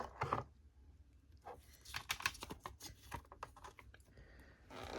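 Faint, scattered clicks and light taps of small plastic items and packaging being handled, most of them in the middle stretch.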